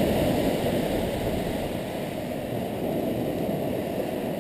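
Steady low rushing of surf breaking on a sandy beach, without distinct events.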